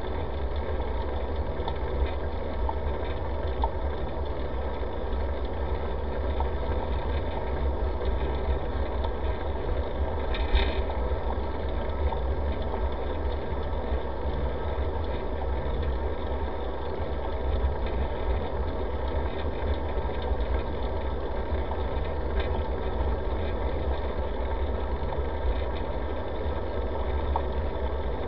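Steady rumble and wind noise picked up by a camera mounted on a moving bicycle, from tyres on pavement and airflow over the microphone, with one short higher-pitched sound about ten seconds in.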